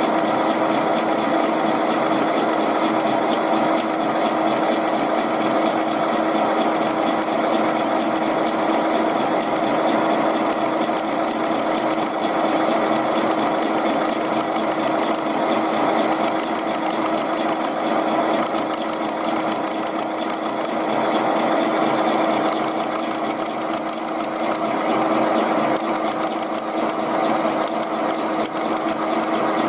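Milling machine driven by a washing-machine motor, running steadily while its end mill cuts into the thin tinplate lid of a food can. A constant motor hum with a fine, fast high-pitched chatter from the cutter on the metal.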